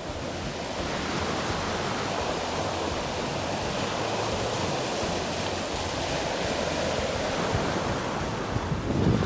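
Ocean surf washing onto a beach: a steady rush of waves. Near the end, a gust of wind buffets the microphone with a rough low rumble.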